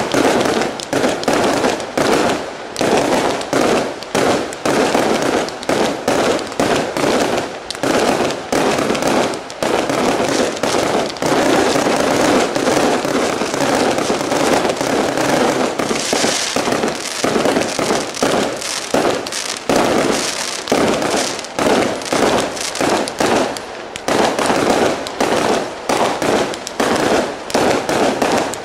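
Aerial fireworks display: a rapid string of shell bursts and reports. They thicken into a near-continuous barrage around the middle and thin out again near the end.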